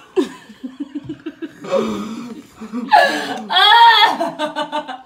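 Laughter: quick chuckling at first, then a louder, higher burst of laughing about three seconds in that breaks into rapid ha-ha pulses.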